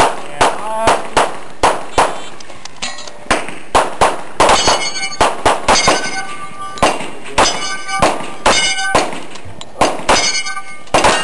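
Handgun shots fired rapidly at steel targets, about thirty sharp reports in quick groups with short pauses between them. Many are followed by the clear ring of struck steel plates.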